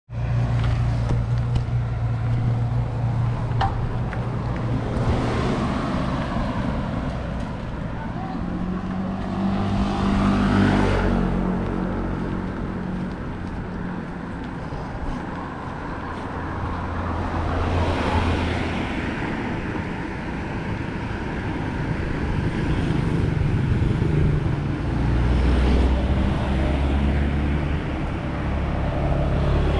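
Road traffic heard from a bicycle riding along the road: several motor vehicles pass one after another, each swelling and fading, over a steady low rumble of engines and tyre noise.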